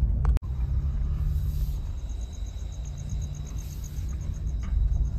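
Steady low rumble of a car driving at night, heard from inside the cabin. From about two seconds in, faint insects chirp in an even, rapid pulse.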